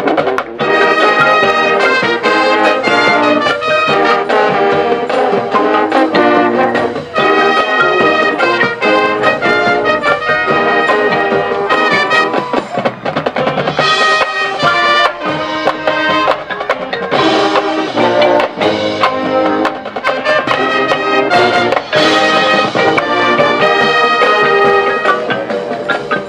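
A band playing a loud passage led by brass, trumpets and trombones holding full chords that change every second or so.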